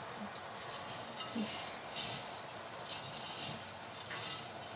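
Hands rubbing and tossing oil-coated dry vermicelli (seffa) in a glazed ceramic bowl, working the oil through so the strands stay separate when steamed. The strands rustle in soft swishes, roughly one a second.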